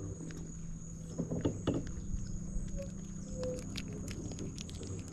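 A steady high-pitched insect drone over a low steady hum, with scattered light clicks and knocks throughout.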